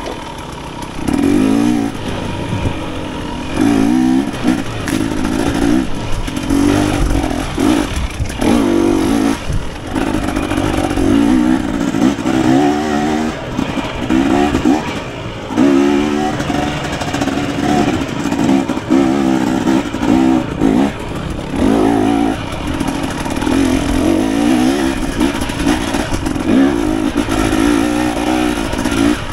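KTM 250 XC two-stroke dirt bike engine revving up and down over and over, the throttle opened and shut in short surges every second or two as the bike is ridden through an enduro trail section.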